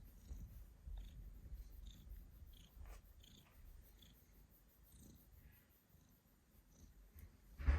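Domestic cat purring, a low pulsing rumble that is strongest for the first few seconds and then fades to a fainter purr. Right at the end comes a brief, sudden louder sound.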